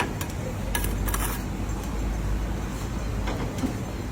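A steady low rumble, like passing motor traffic, with a few light clinks and knocks over it near the start.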